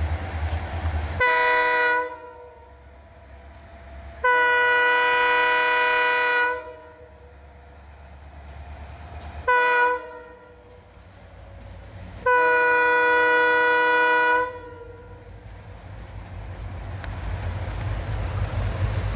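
Diesel freight locomotive sounding its multi-tone horn in four blasts, short, long, short, long, as it approaches. A low engine rumble sits under the horn and grows louder near the end as the locomotive draws closer.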